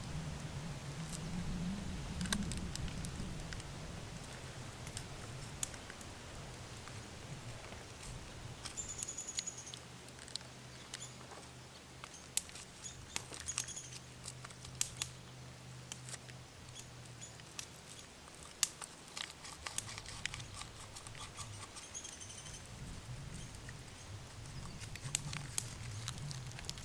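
Instant coffee being poured and stirred in an enamel camp mug: scattered small clicks, taps and scrapes against the mug, over a low steady rumble. A few short, faint, high chirps come now and then.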